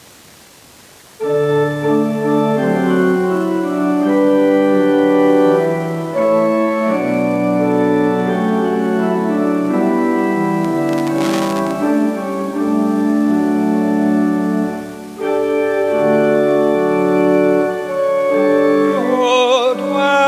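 A pipe organ starts playing about a second in, holding slow, sustained chords as the introduction to a hymn. Near the end a singer's voice with vibrato comes in over the organ.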